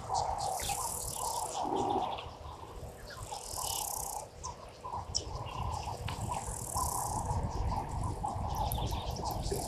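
Birds calling around a bushveld waterhole: many short repeated calls mixed with chirps, and bursts of high-pitched buzzing lasting about a second each, over a low outdoor rumble.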